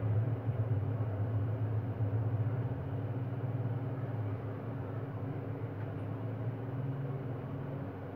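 Steady low mechanical hum over an even background noise, easing off slightly near the end.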